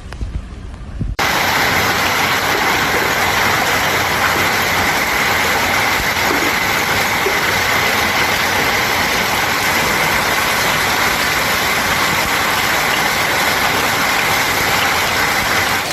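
Heavy storm downpour: a loud, dense, steady hiss of pouring rain that starts abruptly about a second in, after a brief low rumble.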